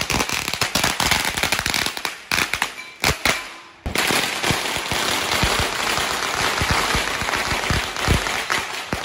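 Strings of firecrackers (bakuchiku) going off in rapid runs of sharp cracks. After a brief break a little over three seconds in, a denser, near-continuous crackle follows and stops near the end.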